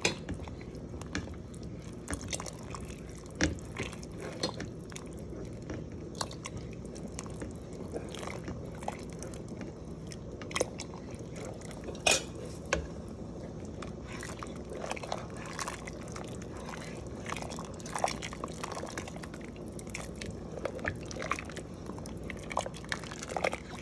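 Pot of soup being stirred as cornflour is mixed in: soft liquid and dripping sounds with scattered light clicks of a spoon against the pot, a few of them sharper.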